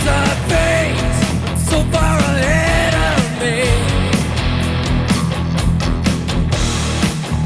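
Rock band playing live: a dense mix with heavy bass and drums, and a melody line that bends and wavers in pitch over the first three seconds. Regular drum hits run through the second half.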